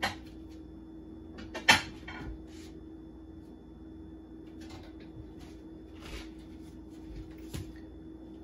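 Kitchen handling noises: a sharp knock at the start and a louder clack a little under two seconds in, followed by softer scrapes and rustles, over a steady low hum.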